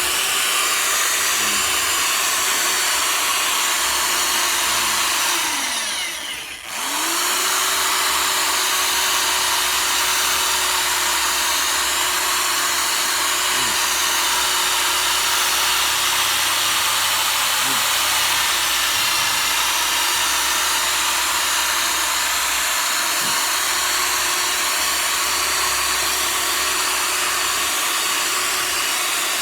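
Cordless drill spinning a sanding disc against a plastic headlight lens during wet sanding. The motor runs steadily, stops briefly about six seconds in, then spins back up.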